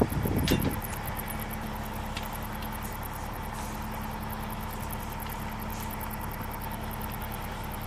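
An engine idling steadily with a low pulsing hum, during aircraft refuelling. A few metallic clunks come in the first second.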